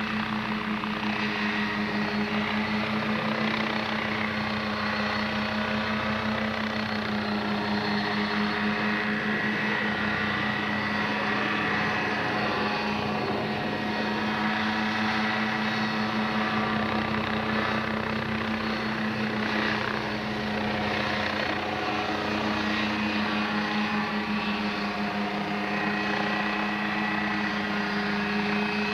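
Homebuilt experimental helicopter running: a steady engine drone at one strong, even pitch, with rotor and engine noise around it.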